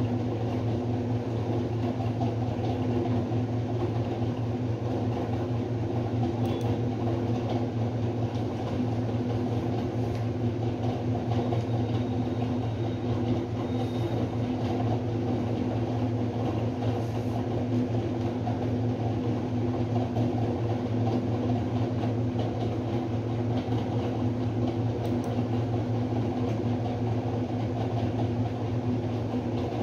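Steady low mechanical hum with no change in level.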